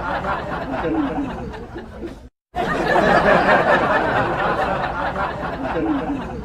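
Studio audience laughing together, a crowd laugh track that dies away, breaks off into a moment of silence about two seconds in, then starts again loudly and slowly fades.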